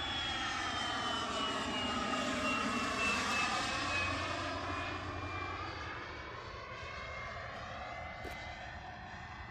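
Small turbojet engine (Xicoy X45) of a radio-controlled T-33 jet flying past. Its high whine falls slowly in pitch, is loudest about three seconds in, then fades.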